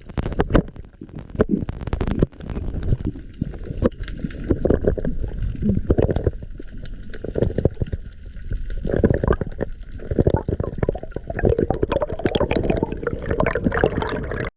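Underwater bubbling and gurgling with a low rumble and many small clicks and knocks, as picked up by a camera under water on a dive.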